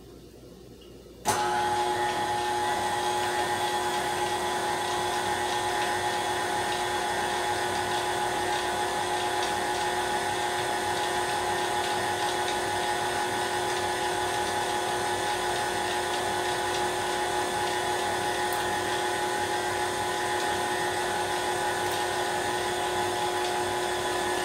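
KitchenAid electric stand mixer switched on about a second in, then running at a steady speed with a constant motor whine as it beats a full bowl of pound cake batter.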